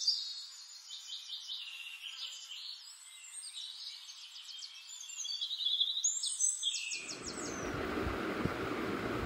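Small songbirds chirping and trilling in quick, overlapping calls. About seven seconds in, the birdsong cuts off abruptly and a steady rushing background noise with a low rumble takes over.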